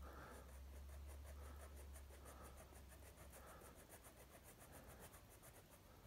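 Faint scratching of a black felt-tip marker on paper in short, irregular colouring strokes as a small area is filled in. A low steady hum sits underneath during the first half.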